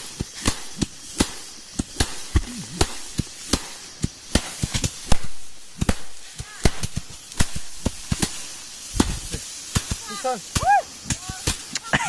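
Rice being threshed by hand: bundles of cut paddy stalks are struck down repeatedly, giving sharp, irregular thwacks a few times a second. A short voice is heard near the end.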